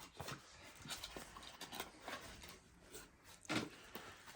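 Faint rustling and light knocks of packaging being handled as a boxed cup is taken out and unwrapped, with one louder knock about three and a half seconds in.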